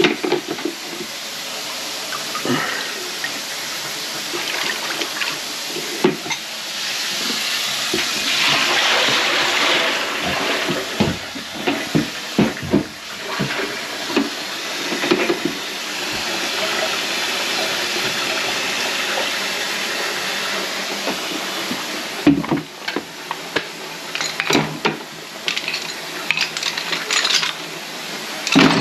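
Water running from a kitchen tap into the sink as a pan of greasy drain water is emptied and rinsed. Near the end the running water gives way to the knocks and clatter of the pan being handled.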